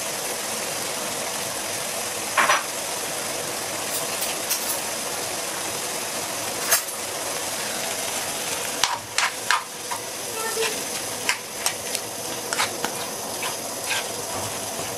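Chicken, onion, mushroom and sliced green olive filling sizzling with a steady hiss in a frying pan. From about nine seconds in, a utensil clicks and scrapes against the pan as the mixture is stirred.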